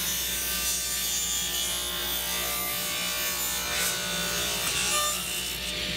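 Ridgid 10-inch cast-iron table saw running, its blade tilted to 45 degrees, ripping a board lengthwise down the middle into two bevelled French cleats as a push block feeds it through. The cutting noise sits over the steady motor hum and gets a little louder about four to five seconds in.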